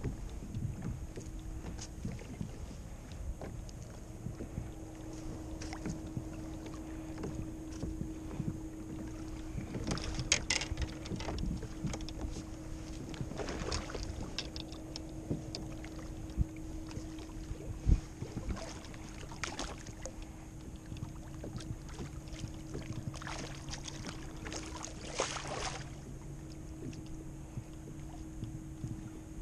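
Water lapping against a fishing kayak's hull with wind on the microphone, under a faint steady hum. Scattered knocks and clicks come from fishing gear being handled, the sharpest about eighteen seconds in.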